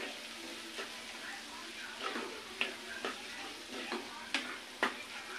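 Metal spoon stirring a tomato and onion masala sizzling in a frying pan, with a steady frying hiss and a few sharp clicks and scrapes of the spoon against the pan.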